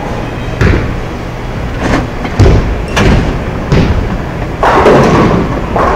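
Bowling alley din: a steady rumble of balls rolling on the lanes, broken by about half a dozen sharp knocks and clatters of balls and pins, the loudest about halfway through and near the end.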